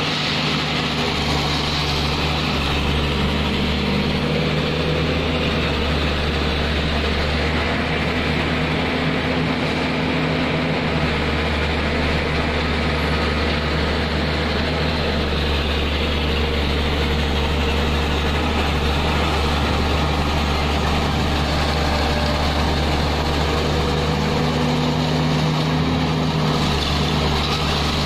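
Heavy diesel engine running steadily at an even pitch, its low note swelling slightly partway through.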